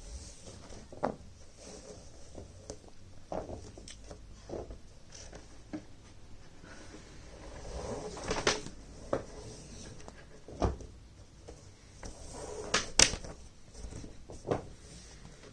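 Handling noise of a rope being worked and pulled tight around a knot: soft rustling with scattered sharp knocks, the loudest about eight and thirteen seconds in.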